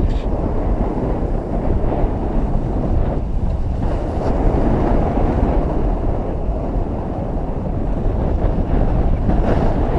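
Wind rushing and buffeting over a skier's camera microphone while skiing downhill at speed, mixed with the hiss of skis sliding on packed snow.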